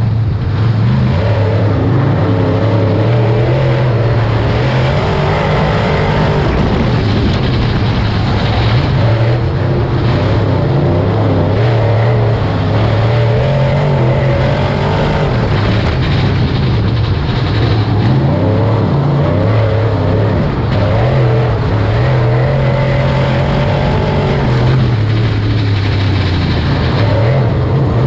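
Race car engines running hard on track, their pitch rising and falling as they lap, with no let-up.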